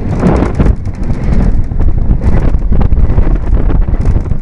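Roller coaster train running along its track, with a steady low rumble, rapid clattering of the wheels and heavy wind buffeting the microphone.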